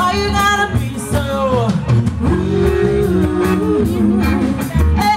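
Live band playing: a woman singing lead, with held and bending notes, over electric guitars and a drum kit.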